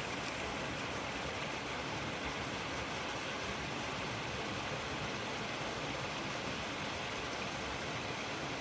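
Steady, unbroken rush of water pouring through a mountain stream's small waterfall and cascades.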